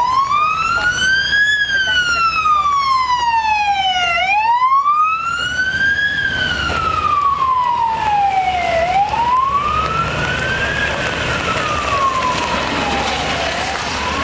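Emergency vehicle's electronic siren sounding a slow wail, rising and falling in pitch about every four and a half seconds, three times over. Road noise from the passing traffic swells in the second half.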